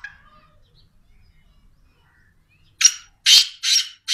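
Black francolin (kala teetar) calling: a loud run of harsh, rasping notes in quick succession, starting about three seconds in, after a faint short chirp at the very start.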